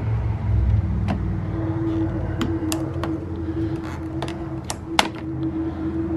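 Plastic grille ring being pried by hand off a Jeep Grand Cherokee Trackhawk's front grille: a series of sharp clicks and snaps as its clips pop loose, the loudest about five seconds in, over a steady low hum.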